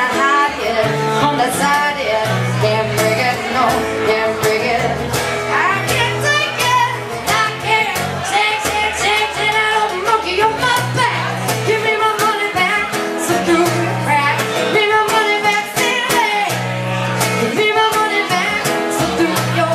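Live acoustic music: a woman singing into a microphone over a strummed acoustic guitar with repeated low bass notes.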